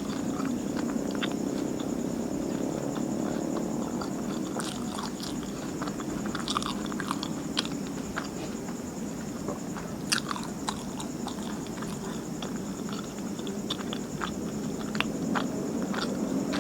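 Close-up mouth sounds of someone biting and chewing martabak manis (thick sweet pancake): many small irregular wet clicks and crunches, the loudest about ten seconds in, over a steady background hum.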